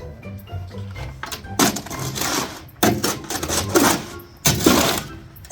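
Background music at the start, then concrete mix being shovelled and scraped into the form in about four rough, gritty bursts.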